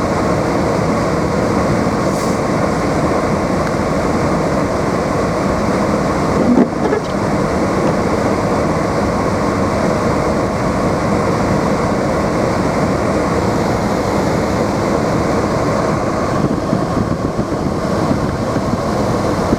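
Steady road and engine noise of a car driving through a snowstorm, heard from inside the cabin. One short knock about six and a half seconds in.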